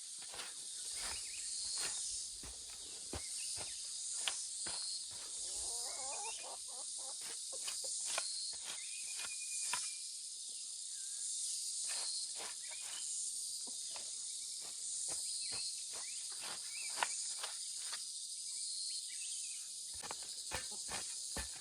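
Steady high-pitched chorus of insects, with irregular close knocks, clicks and rustles scattered through it.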